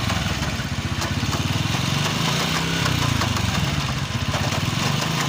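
Italika FT 150 GTS single-cylinder four-stroke engine running steadily in third gear with the rear wheel spinning off the ground and the drive chain jerking. The noise is, by the mechanic's reckoning, almost surely a fault in the gearbox's third gear.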